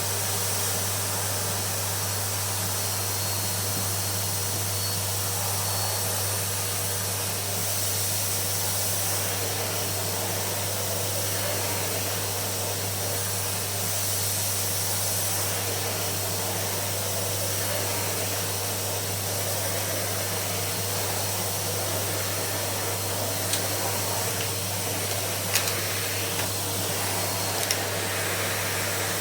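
Numatic canister vacuum cleaner running steadily, a constant motor hum under a strong airflow hiss, with a few sharp clicks in the last few seconds.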